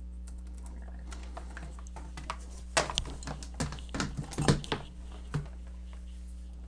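Rustling and a flurry of light clicks and taps as a power adapter's cord is unwound and laid out on a tabletop, busiest between about two and a half and five and a half seconds in. A steady low hum runs underneath.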